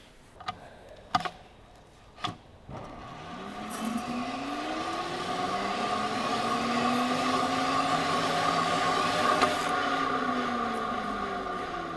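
A drill turning the output shaft of a VW Golf's original five-speed manual gearbox, spinning the gear train up. The whir rises in pitch a few seconds in, holds steady, then slowly winds down near the end. It is a test spin, listening for any off-centre rubbing while the gearbox is centred on its adapter. A few light clicks come before the spin starts.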